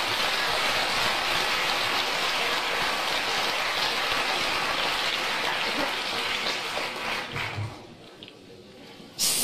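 Audience applauding, a steady wash of clapping that dies away about eight seconds in.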